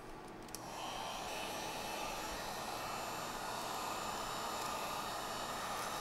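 Electric Wagner heat gun switched on with a click about half a second in, then running steadily with a whooshing fan and hot-air rush as it shrinks a plastic shrink-wrap bag around a remote control.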